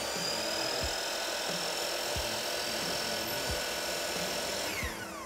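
Compound miter saw motor running at full speed with a steady high whine while cutting crown molding, then winding down with a falling pitch near the end.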